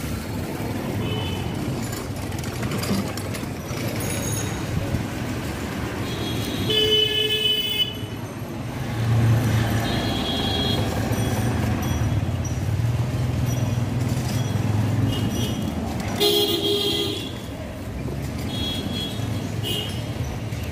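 Street traffic: a vehicle horn sounds twice, about 7 seconds in and again about 16 seconds in, over the steady low rumble of passing engines.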